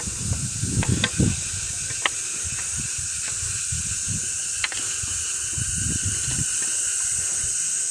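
Cicadas buzzing in a steady, high-pitched drone. Under it come scuffing footsteps on the rock path and a few sharp clicks, with footfall thuds clustered about a second in and again near six seconds.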